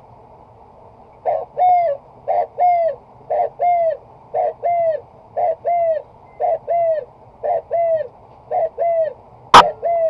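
A bird's two-note call, a short note then a longer arched one, repeated about once a second. Near the end comes a single sharp air-rifle shot.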